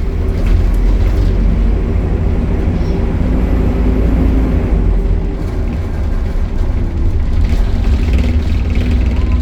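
Optare Solo Euro 5 bus running, its diesel engine giving a steady low hum that dips slightly about halfway through.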